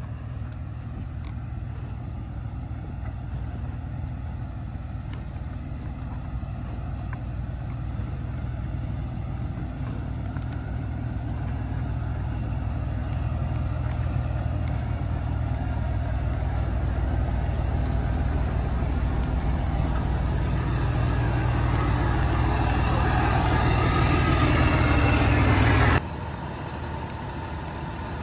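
Heavy truck engine running steadily, a deep low drone. It grows gradually louder over about 25 seconds, then drops off suddenly near the end.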